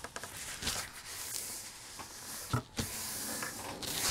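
Rustling of a diamond painting canvas and its release paper as hands slide and smooth it across a table, with a couple of brief taps a little past halfway.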